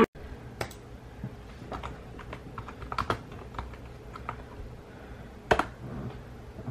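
Typing on a computer keyboard: a run of scattered key clicks, with a louder click near the end.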